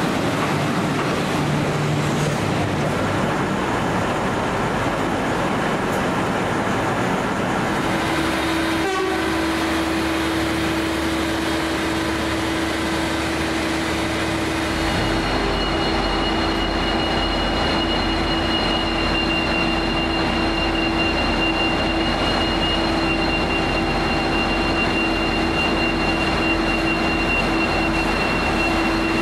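Train running at a station platform: a steady mechanical drone, with a steady hum setting in about eight seconds in and two high-pitched whines joining about halfway through.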